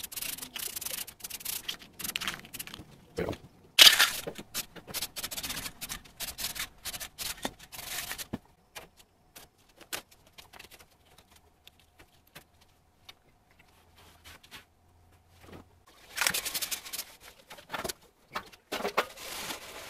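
Paper and blue painter's tape being handled for masking: irregular crinkling, crackling and rustling as tape is pulled and pressed down and paper is smoothed. There is a quieter stretch in the middle and a busier burst of rustling near the end.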